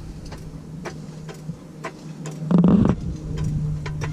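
Scattered light metallic clicks and ticks from a long hydraulic floor jack being set in place under a truck, with one brief louder sound about two and a half seconds in, over a steady low hum.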